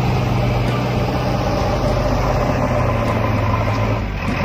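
Toy vehicle's engine sound effect: a steady, low, idling hum that dips slightly near the end.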